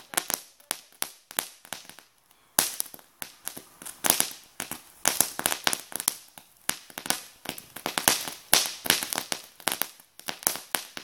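Ground fountain firework crackling: a dense run of sharp cracks, several a second, with a brief lull about two seconds in.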